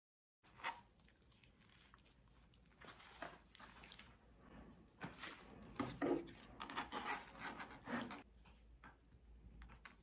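Hands handling a soft, crumbling block of tofu on a plastic cutting board, with paper-towel rustle: faint, irregular squishing, crumbling and light tapping that grows busier from about three seconds in.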